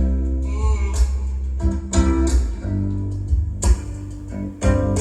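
Recorded acoustic folk-blues song played back through hi-fi loudspeakers: an instrumental stretch of plucked acoustic guitar notes over deep bass, between sung lines.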